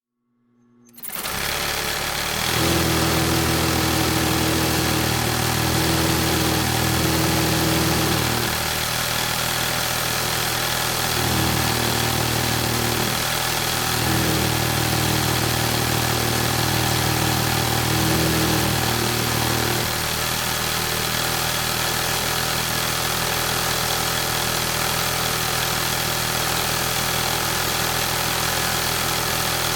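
Industrial sewing machine running in stretches of several seconds with short breaks, its low, steady machine tone dropping out and picking up again, then running more evenly after about 20 seconds.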